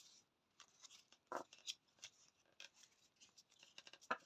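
Faint handling of Lenormand oracle cards: light clicks and soft rustles of cards being moved, with a slightly louder click about a second and a half in and another near the end.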